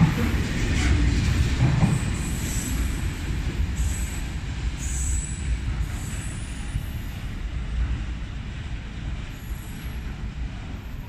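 Engineering freight train of flat wagons going past, its last vehicle passing close at the start and then pulling away, the low rumble of the wheels slowly fading. A few short high wheel squeals come in the first half.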